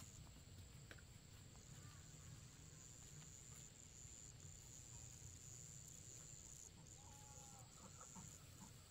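Faint outdoor ambience: a steady high insect drone that breaks off briefly now and then, with a few faint chicken clucks near the end.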